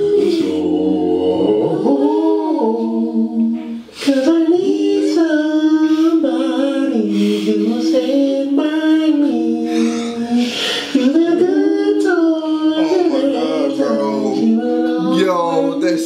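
A cappella singing in close harmony: several voices hold long notes together and change chord every second or so, with a brief break about four seconds in. It is a comic voiceover putting a song in the mouths of the owlets.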